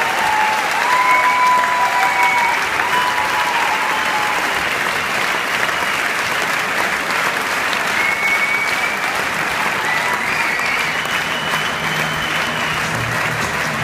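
Large concert audience applauding steadily in a theatre hall, with scattered cheers rising above the clapping.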